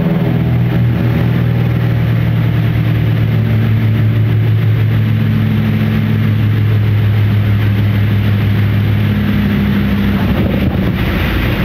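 Twin piston engines of a Cessna 310 running in a steady, loud drone.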